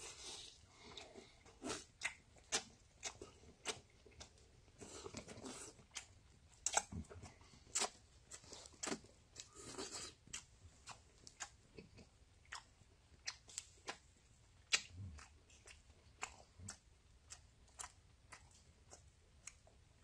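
A person chewing and tearing roasted water deer rib meat off the bone, with irregular small crunches and snaps, faint.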